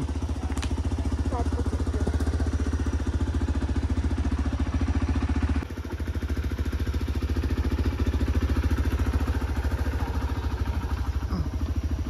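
Motor vehicle engine running steadily while on the move, a fast even pulsing with a heavy low rumble and a brief drop in level about five and a half seconds in.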